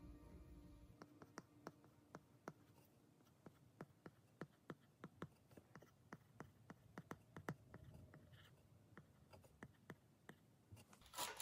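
Apple Pencil tip tapping and scratching on the iPad Pro's glass screen while handwriting. The clicks are faint and irregular, about two or three a second.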